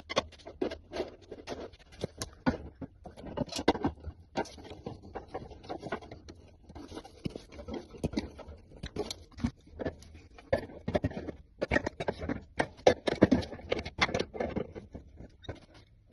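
Irregular clicks, light knocks and scraping of hand work, with a few louder knocks late on.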